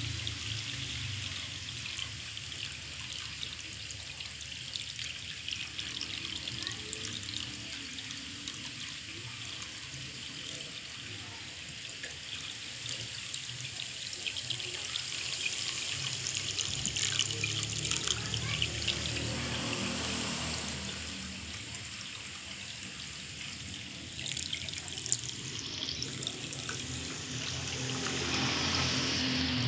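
Water spilling over the rim of a plastic basin and splashing into a shallow pond: a steady trickle, swelling a little about two-thirds of the way through and again near the end.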